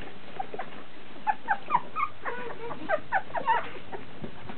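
Litter of 16-day-old puppies squeaking and whimpering: a quick run of a dozen or so short, high squeaks starting about a second in and lasting a couple of seconds.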